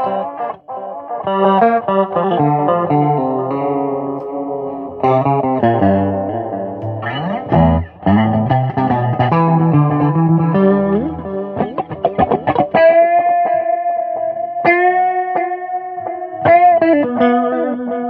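Electric guitar music played through effects. Quick melodic note runs give way, about two-thirds in, to long held notes with pitch bends and vibrato.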